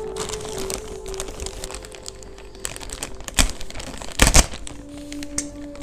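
Plastic courier mailer crinkling and rustling as it is handled and slit open with a knife, with two louder crackles, the loudest about four seconds in.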